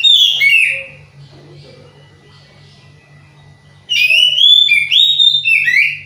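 Oriental magpie-robin singing: a loud phrase of clear, gliding whistled notes ends about a second in, and after a pause a second phrase of rising and falling whistles fills about two seconds near the end. The keeper presents this as the song of a bird in good voice but short of breeding drive, still somewhat monotonous.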